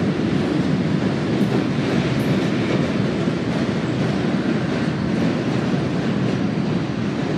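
Freight train of covered hopper cars rolling steadily across a steel truss bridge: a continuous rumble of wheels on rail.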